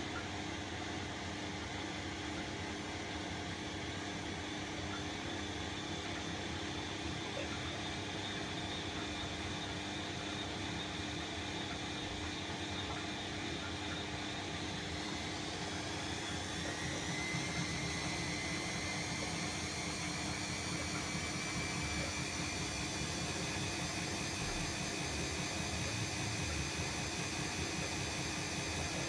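Bosch WAE24162GB/03 washing machine running in its spin phase: a steady hum, then from about halfway in a motor whine that rises in pitch and grows a little louder as the drum speeds up, then holds.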